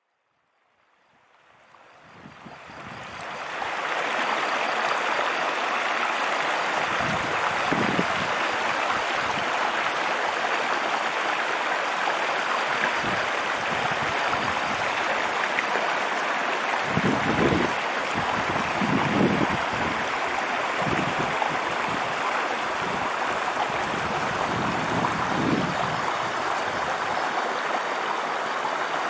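Shallow stream flowing over rocks: a steady rushing of water that fades in over the first few seconds, with a few brief low rumbles.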